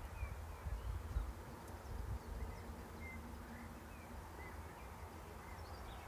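Small birds chirping faintly in short, scattered high notes, over an uneven low rumble on the microphone.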